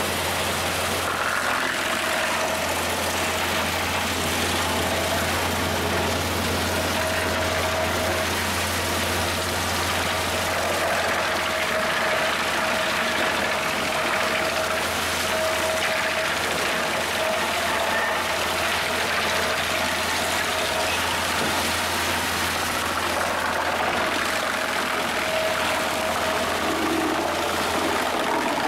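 Home-made wood chipper running steadily under load while branches and pieces of wood are fed into its spiked feed roller and chipped.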